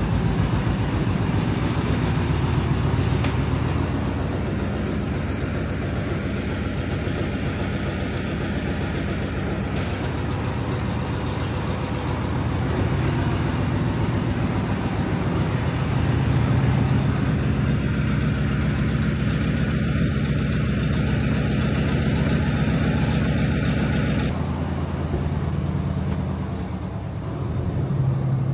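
A ferry's engine running steadily as a loud, constant low hum under a broad hiss; the upper hiss drops away suddenly about three-quarters of the way through.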